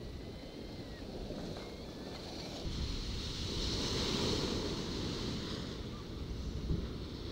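Rough sea waves surging and breaking over a promenade sea wall, with wind buffeting the microphone. A big wave crashes against the wall about three seconds in. That is the loudest moment, a swelling roar with a hiss of spray.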